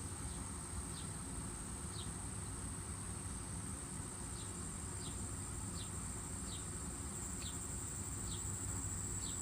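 Outdoor insect chorus: a steady high-pitched drone, with short falling chirps repeating about once or twice a second over it.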